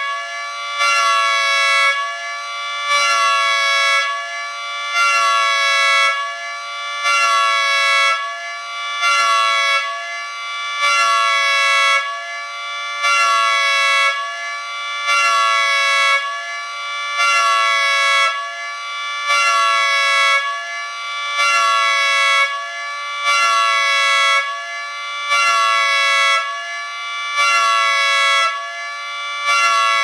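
Miniature 3T22B mechanical siren running at full speed. Its chord of steady tones alternates regularly between a louder and a softer state about once a second, which is the siren's hi-lo or pulse pattern.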